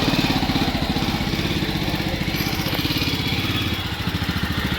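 Jawa 42 motorcycle's single-cylinder engine running steadily, an even train of firing pulses with no revving.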